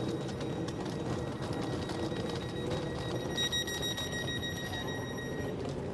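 Steady low rumble inside an SOB Traverso (Stadler RABe 526) passenger train. Past halfway, a high electronic tone sounds steadily for about two seconds.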